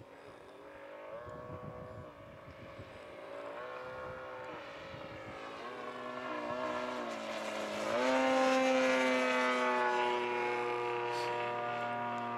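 Graupner Extra 300 RC model plane's AGM-30 30 cc single-cylinder gasoline engine running in flight through a four-chamber Pefa RDL 30 silencer, a new engine on its break-in flight. The engine note wavers and grows louder, then about two-thirds of the way through rises sharply in pitch and volume and slowly sinks in pitch near the end.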